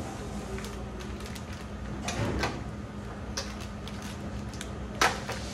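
A utensil scraping thick choux pastry dough out of a stainless steel bowl and into a plastic piping bag: a few soft scrapes and light knocks, with the sharpest knock about five seconds in.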